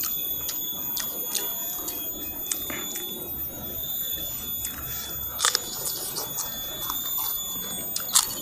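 Close-miked eating: chewing and crunching of raw vegetables and fried snacks, with small clicks throughout and sharper crunches about five and eight seconds in, over a steady high-pitched whine.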